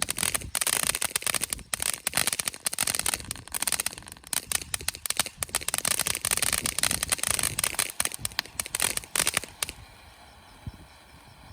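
Black Cat 'Little Big Show' firework fountain spraying, a dense high hiss full of rapid crackles, that cuts off abruptly about nine and a half seconds in as the fountain burns out.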